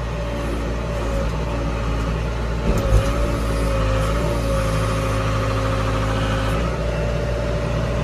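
Case 580L backhoe loader's four-cylinder diesel engine running, heard from inside the cab, as the backhoe boom is worked through its hydraulic controls. About three seconds in there is a thump, the engine note grows heavier under hydraulic load, and a wavering whine comes in.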